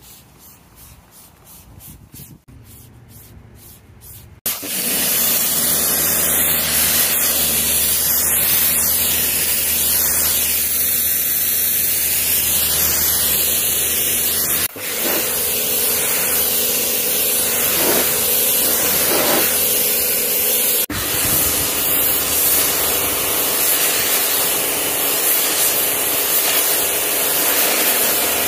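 Pressure washer spraying water in a steady, loud hiss, with its motor humming low underneath; it starts suddenly about four seconds in, after a quieter stretch.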